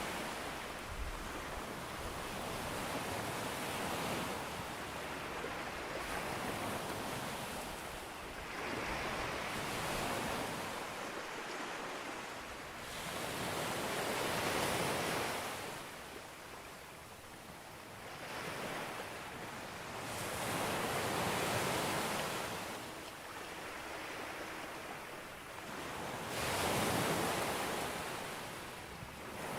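Sea waves breaking on a beach, the surf wash swelling and fading about every five seconds, six times in all.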